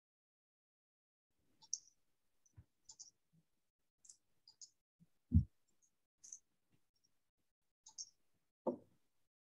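Faint, scattered clicks and ticks picked up by a computer microphone, with a soft low thump about halfway through and a smaller one near the end. This is handling noise at a desk.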